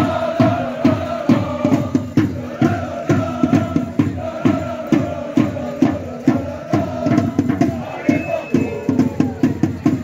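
Football supporters chanting in unison to a steady beat of about two to three strokes a second.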